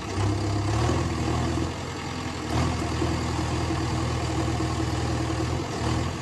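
Vehicle engine idling steadily, its pitch stepping slightly up or down a few times.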